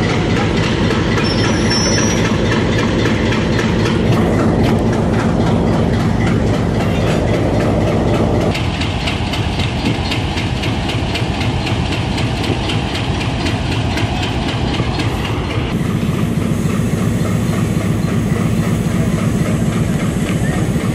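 Pakistan Railways Hitachi PHA-20 diesel-electric locomotive running as the train pulls out, with the wheels clattering over the rail joints.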